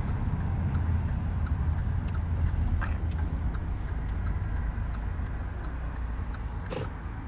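Road noise inside a moving car's cabin: a steady low rumble, with a couple of faint clicks.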